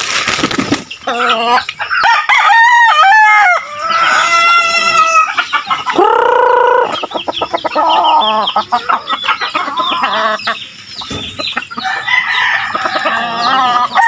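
Several roosters crowing one after another, each crow drawn out for about a second, with hens clucking in between.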